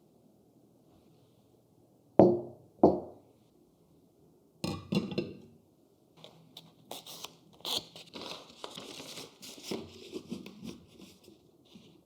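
Two sharp knocks in quick succession, a short clatter, then packaging being handled: crinkling, rustling and tearing.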